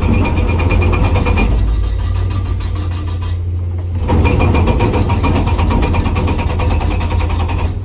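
Hydraulic rock breaker on a Komatsu PC200 excavator hammering hard rock in a rapid, even stream of blows over the excavator's steady diesel engine, pausing for about a second midway before hammering again.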